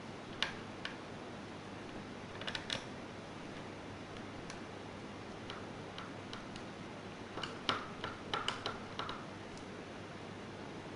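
Light clicks and taps of laptop parts being handled during disassembly: one near the start, a few around two and a half seconds in, then a quick cluster from about seven to nine seconds in, over a steady hiss.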